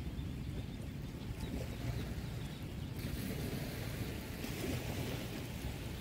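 Small waves washing onto a sandy beach, with wind rumbling on the microphone; the hiss of a wave's wash swells about halfway through.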